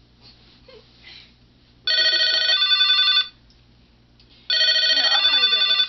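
Telephone ringing: two rings of about a second and a half each, a little over a second apart.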